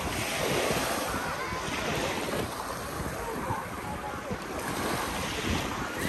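Small sea waves washing up onto a sandy beach in a steady, surging hiss, with wind buffeting the microphone.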